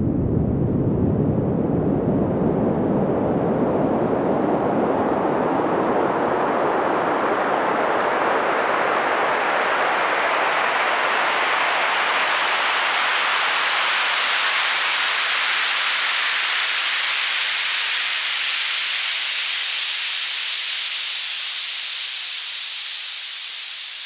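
Test signal for speakers: a band of noise that sweeps slowly and steadily upward in pitch, from deep bass to high treble. It is played the same in both channels, so it should sound centred and stable between the speakers.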